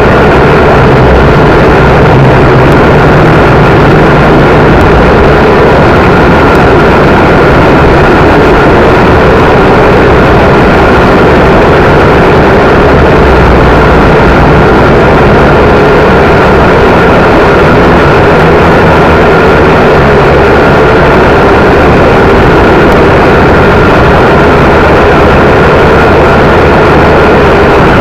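WLtoys V959 quadcopter's small brushed motors and propellers running with a steady high whine, loud and close, with uneven wind rumble on the microphone underneath.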